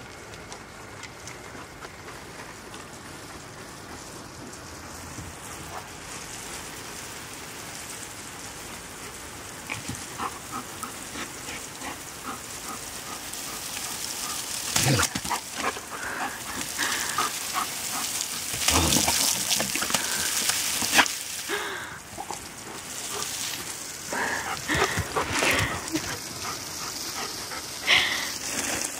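Water spraying from a garden hose onto grass and paving, a hissing spatter that grows louder from the middle on, while a dog snaps and splashes at the jet, with a few sharp knocks.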